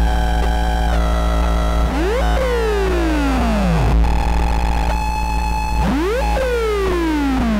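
Finegear ModMix analog mixer in a no-input feedback loop, putting out a loud, harsh synth drone over a deep steady hum. Twice, a tone shoots up and then glides down over a second and a half, while steady high tones above it shift in steps.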